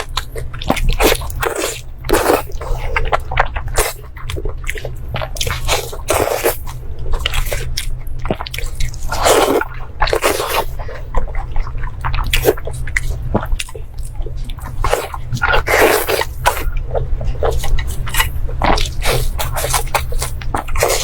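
A person chewing and eating: a dense run of short mouth clicks and smacks, with longer, louder sounds about nine and sixteen seconds in, over a steady low hum.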